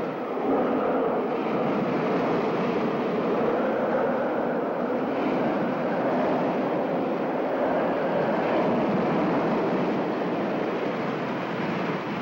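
Hurricane wind roaring steadily, a dense rushing noise with no breaks.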